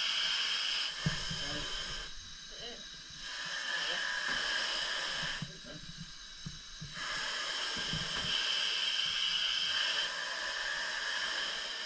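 Steady hiss of breathing gas flowing through the chamber's built-in breathing system (BIBS) masks, dropping out twice for about a second each. A few low bumps sound underneath.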